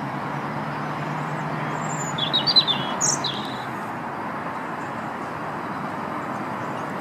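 A short run of small-bird chirps, quick high notes about two to three seconds in, over steady outdoor background noise with a low hum in the first half.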